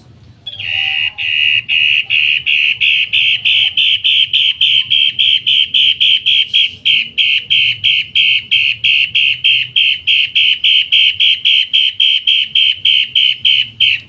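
Cendet matahari songbird calling a loud, harsh note over and over, about four a second, in one long unbroken run that starts about half a second in.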